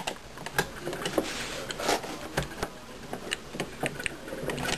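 Irregular light clicks and rattles of a power cable's plug being handled and pushed into the socket of a WD My Book external hard drive, with a short rustle about a second and a half in.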